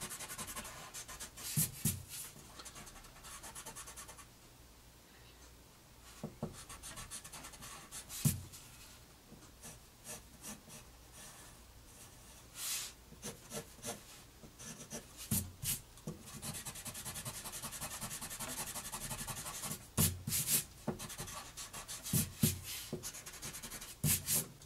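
Pencil eraser rubbing back and forth on drawing paper, and a graphite pencil scratching lines on the paper, with a few short, louder scrapes along the way.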